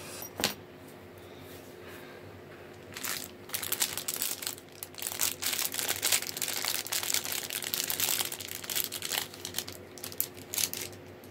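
Clear plastic bag crinkling and crackling as a folding knife is pulled out of it, a dense run of crackles starting about three seconds in and stopping near the end. A single sharp click comes just after the start.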